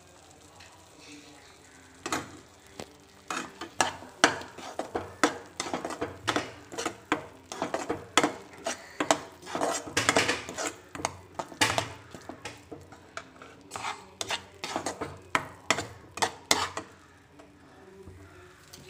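Metal spatula scraping and knocking against a non-stick frying pan as chili powder is stirred into ground masala paste, one or two strokes a second. The strokes start about two seconds in and stop about two seconds before the end.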